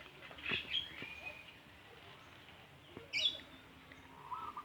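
Birds chirping: a few short calls about half a second in, a louder brief call about three seconds in, and some lower notes near the end.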